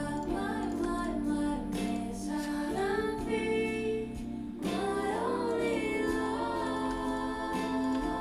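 Background music: a song with a female voice singing a gliding melody over sustained instrumental accompaniment and steady bass notes.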